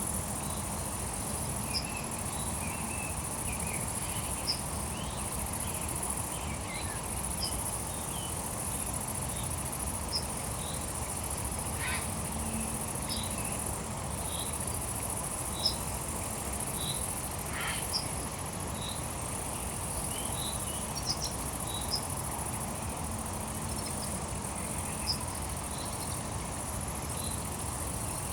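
Crickets trilling in a steady high-pitched chorus, with short bird chirps scattered throughout over a low steady background rush.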